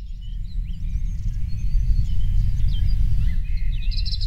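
Birds chirping and twittering, with a rapid trill near the end, over a loud, steady low rumble that swells during the first second.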